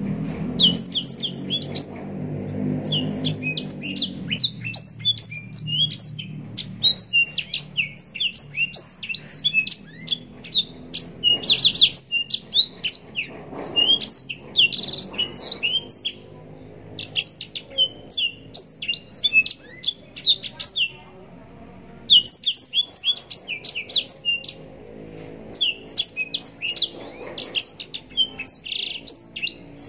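Blackthroat (black-throated canary) singing a long, fast, unbroken-sounding run of high chirps and trills, with a couple of short breaks partway through.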